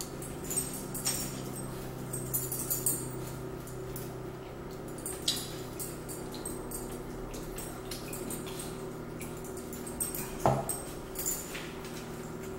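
Close-up eating sounds: scattered wet mouth clicks and smacks from chewing a biscuit, then drinking from a plastic cup, over a steady low hum. One louder knock about ten and a half seconds in.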